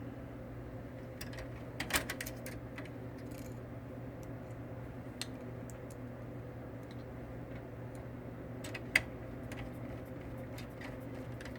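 Scattered small clicks and taps of a screwdriver, screws and their washers as the screws go back into a printer's motherboard, over a steady low hum. The sharpest clicks come about two seconds in and again about nine seconds in.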